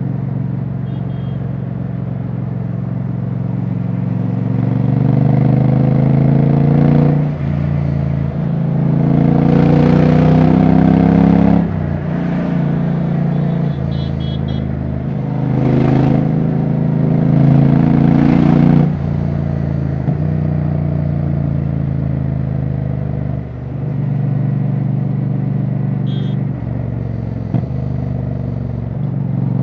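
Royal Enfield Bear 650's 648 cc parallel twin running with no exhaust silencer fitted, so the open exhaust note is loud and raw. The bike pulls through the gears: the pitch climbs in several long rises and drops sharply at each gear change.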